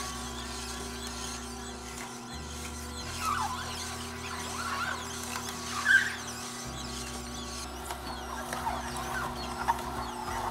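Electric juicer running with a steady motor hum as apples are pressed through it, with short squeaks and creaks from the fruit in the mechanism, the loudest about six seconds in.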